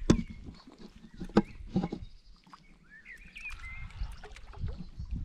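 A few sharp knocks and low thumps, with birds chirping in the background.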